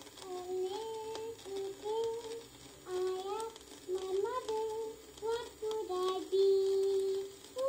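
A child singing a melody unaccompanied, played back from a 1956 home-recorded vinyl disc, with scattered surface clicks and hiss. One note is held for about a second near the end.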